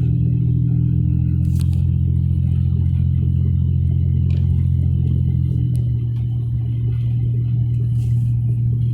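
Steady low drone of a car driving, engine and road noise heard from inside the cabin, easing slightly about six seconds in.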